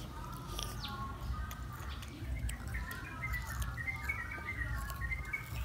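A young girl's high voice in a drawn-out sing-song, going higher in pitch in the second half.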